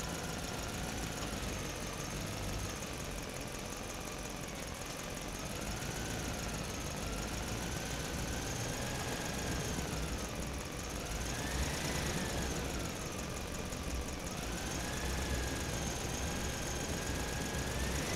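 Engine running at idle, a low steady drone with a faint whine that slowly rises and falls in pitch.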